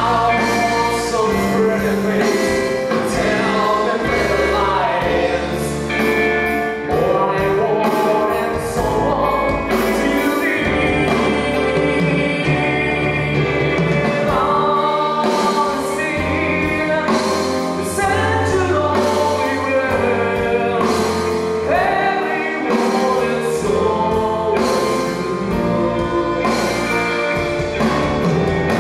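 Live band performing on a stage sound system: electric guitars, bass and drums under a male lead singer, with a steady beat throughout.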